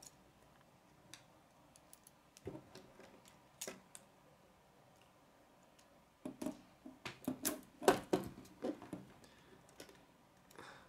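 Plastic K'nex rods and connectors clicking and snapping together as they are assembled. A few scattered clicks come first, then a busy run of clicks and knocks from about six seconds in.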